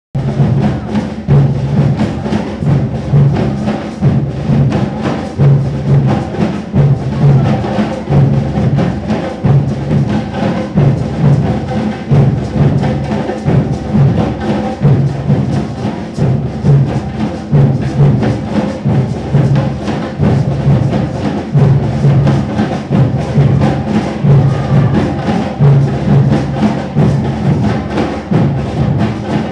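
Batuque (batuku) percussion music: a repeating low drum beat, with busy percussive texture above it.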